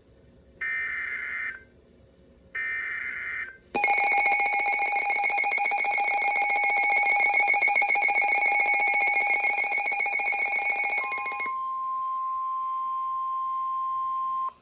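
Emergency Alert System tones. First come two one-second bursts of the screechy digital SAME header, a second apart. About four seconds in, the harsh two-tone EAS attention signal starts and sounds for about seven and a half seconds. Near the end a single steady warning tone from NOAA weather radio takes over and holds.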